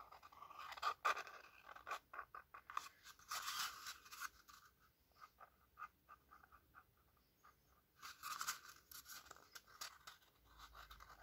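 Faint scratching strokes of a marker pen on paper, drawing and filling in spots, in bursts with a quieter spell in the middle.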